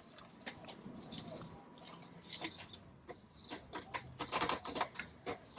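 Irregular small clicks, taps and light jingling of hardware being handled by hand, as the dust cover and hatch cover of the caravan's Truma gas hot water system are refitted and closed.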